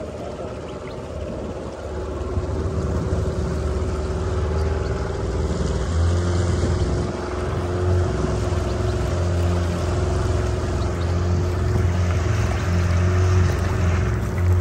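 Motorboat engine running steadily as the boat moves across open water, with a steady rush of water and wind noise. It grows louder over the first few seconds, then holds.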